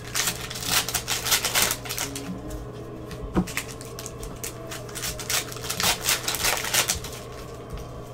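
Football trading cards and their packs being handled: rustling and sliding of cards and wrappers in two busy stretches, with a single sharp click about three and a half seconds in.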